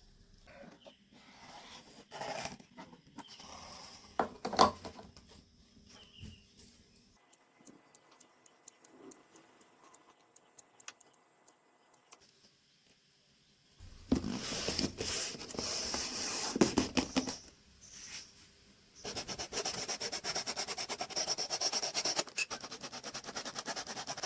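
Hand work on cardboard: scattered handling rubs and small knocks, then two long stretches of dense, rapid scraping in the second half.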